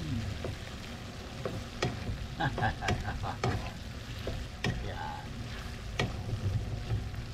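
Wooden spatula stirring and scraping beef chunks in a thick sauce in a nonstick frying pan, with irregular clicks and scrapes over a steady sizzle as the sauce cooks down.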